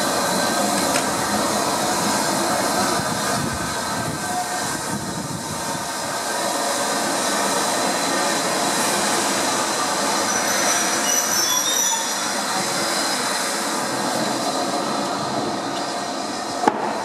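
Passenger coaches of a steam train rolling slowly along the station platform, a steady rail rumble with steel wheels squealing on the track. A single sharp knock near the end.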